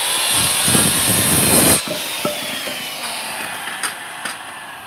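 SKILSAW circular saw cutting through a 4x4 wooden post. The cut ends and the trigger is released about two seconds in, and the blade winds down with a falling whine, with a few light knocks after.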